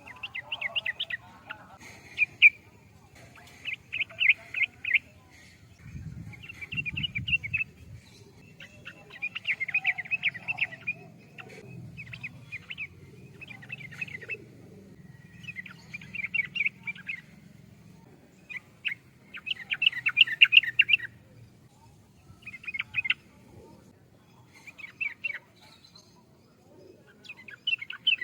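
Yellow-vented bulbul (trucukan) singing: short bursts of bubbling, chattering notes, each about a second long, repeated about every two seconds with short pauses between, over a faint low hum.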